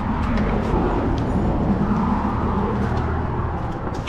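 Steady low rumble of a running vehicle, with no break or change in pitch.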